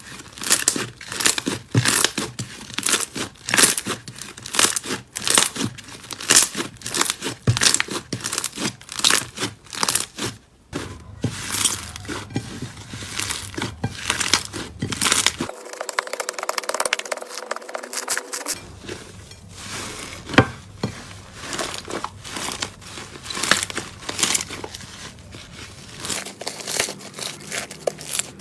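Slime being squeezed and pressed by hand, making a dense run of crackles, clicks and pops over several short clips.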